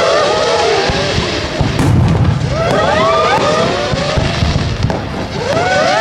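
Fireworks display: volleys of several whistling fireworks at once, about every two and a half seconds, their whistles curving up and down in pitch over a continuous rumble of launches and bursts. Sharp bangs come once near two seconds in and again near five.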